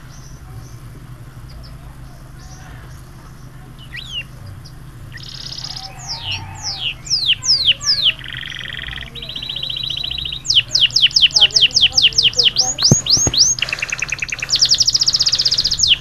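Yellow domestic canary singing: after a few quiet seconds, a song of rapid trills and runs of fast downward-sweeping whistled notes, growing louder toward the end.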